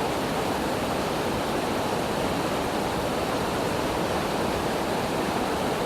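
Waterfall rushing: a steady, even noise of falling water, strongest in the low middle range, with no break or change.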